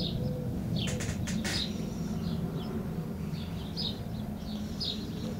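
Birds chirping: short high chirps repeating every half second or so over a steady low rumble, with a few sharp clicks about a second in.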